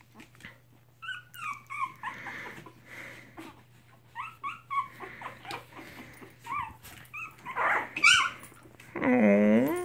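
Three-week-old Chihuahua-mix puppies squeaking and whimpering in many short, high cries that slide in pitch. Near the end there is a louder, longer and lower drawn-out cry.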